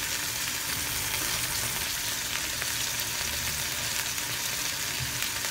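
Boneless chicken searing in a frying pan on medium heat, a steady sizzle.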